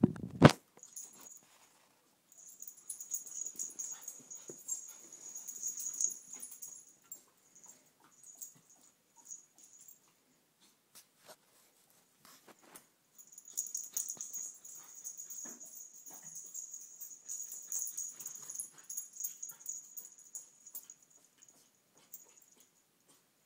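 Two small dogs playing rough together, with dog noises and scuffling in two stretches, about two to seven seconds in and again from about thirteen to twenty-one seconds, and quieter gaps between.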